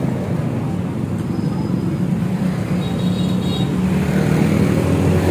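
An engine running steadily, a low hum that grows stronger about two seconds in.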